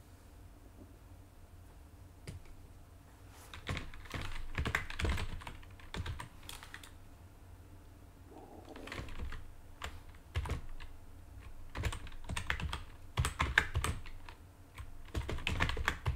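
Computer keyboard being typed on in irregular bursts of clicking keystrokes, starting a few seconds in.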